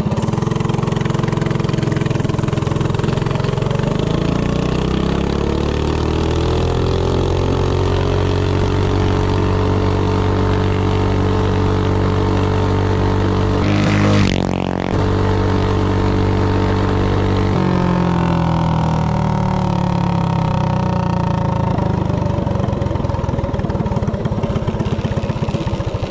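DuroMax 208cc single-cylinder minibike engine, fitted with a header pipe and jet kit, revving up under full throttle from a standstill and then holding high revs at top speed. About halfway through it sweeps past close by with a brief dip, and a few seconds later the throttle comes off and the revs fall.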